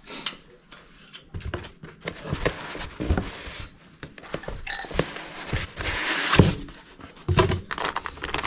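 Handling noises from parts and packaging: irregular knocks, clinks and rustling, loudest a little after the middle.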